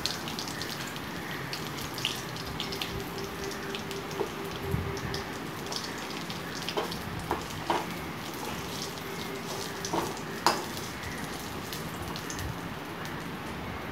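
Oil sizzling steadily as masala-coated fish shallow-fries in a pan. A few sharp clinks and scrapes of a steel spoon against the pan ring out, the loudest about seven seconds and ten seconds in.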